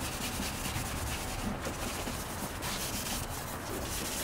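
Maroon abrasive scuff pad rubbed by hand over a painted alloy wheel and its spot-putty patches, in quick repeated strokes. The wheel is being dulled so that primer will stick to it.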